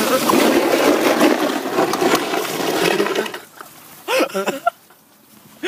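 Loud rushing, scraping noise of a plastic sledge being towed behind a car over a slushy, icy road. It cuts off sharply about three seconds in, and a few short voice cries follow.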